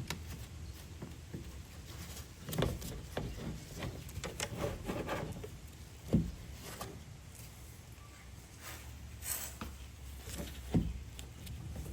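Hands fitting a plastic mudflap into a truck's wheel well, pressing in plastic push-in retainer clips: scattered clicks, rubbing and handling noise, with a few sharper knocks about a quarter, half and nine-tenths of the way through.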